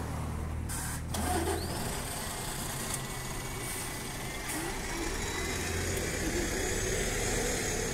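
Double-decker bus engine running close by, slow in traffic: a steady low hum with a faint high whine over it.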